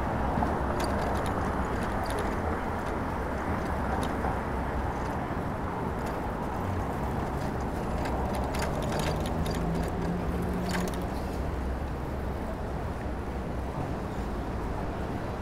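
Steady rushing noise of a bicycle ride through city street traffic, with scattered light clicks and rattles, most of them a little past the middle.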